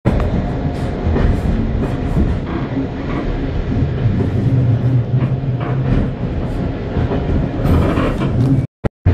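Passenger train running at speed, heard from inside the coach: a steady rumble of wheels on rails with scattered clicks and knocks. The audio drops out sharply for a moment near the end.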